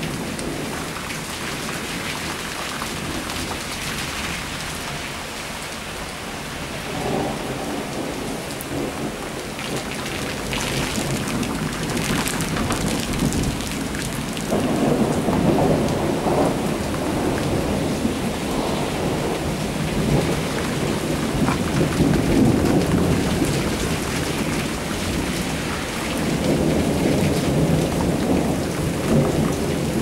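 Rain falling steadily in a thunderstorm, with rolls of thunder swelling up several times: one brief roll early on, a long one from about halfway through and another near the end.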